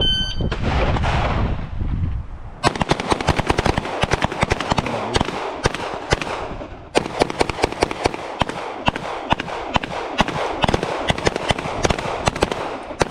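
Several handguns firing rapidly on a shooting line: a short high beep right at the start, then many overlapping shots beginning about two and a half seconds in, with a brief lull about halfway.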